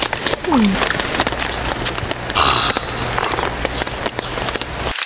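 Heavy rain falling steadily on a camping awning: a constant hiss thick with small taps.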